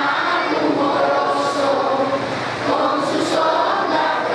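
A crowd, children's voices among them, singing the national anthem together in Spanish.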